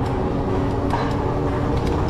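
Steady wind rumble and rolling noise from riding an e-bike, with a faint steady hum under it and a few light ticks.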